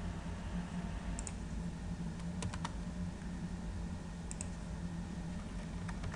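A few sharp clicks from a laptop being worked, in small groups every second or two, over a steady low hum.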